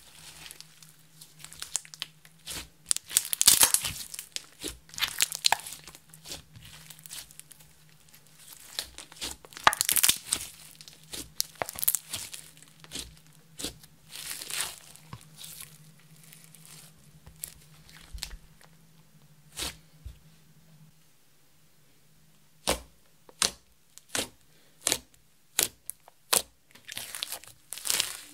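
Hands kneading and stretching a sticky glitter slime, making crackling, tearing sounds in uneven bursts. Later comes a run of short sharp pops, about one every second, as fingertips poke into the flattened slime.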